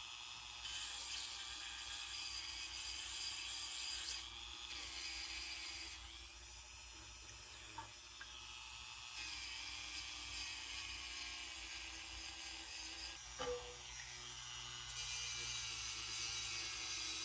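Dremel rotary tool with a diamond sanding disc grinding fired pottery, a high-pitched whine and rasp that swells and eases as the disc is pressed to the piece and lifted.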